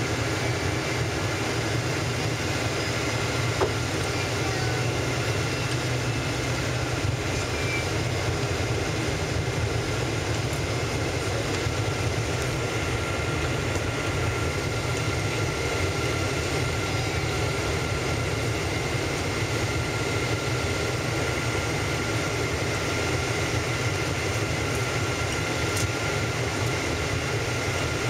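Steady cabin noise inside a Boeing 777-200ER airliner in flight: a constant rush of engine and airflow, with faint steady whining tones over it.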